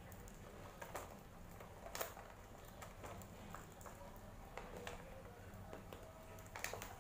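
Faint crinkling and tearing of a taped plastic parcel being unwrapped by hand, with a few sharper crackles, the clearest about one and two seconds in.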